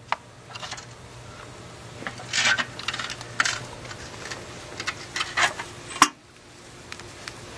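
Gloved hands handling a plastic nursery pot and a lettuce seedling: scattered crinkles, rustles and clicks, in short clusters, with a sharp click about six seconds in.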